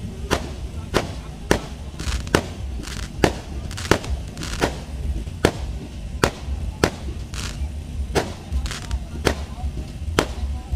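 Fireworks going off overhead: a rapid, uneven series of sharp bangs, about two a second, from bursting aerial shells.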